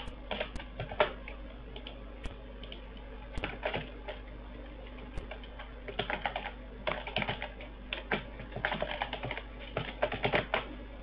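Computer keyboard typing, with several short bursts of quick keystrokes separated by pauses.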